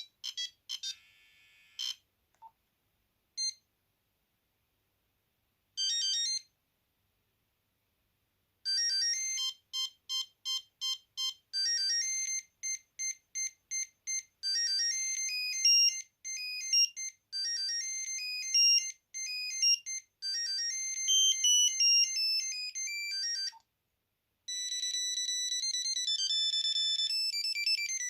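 Nokia 8210 ringtones playing one after another: electronic beeping tunes of high single notes, broken by short silences. A longer melody runs through the middle, and another tune begins near the end.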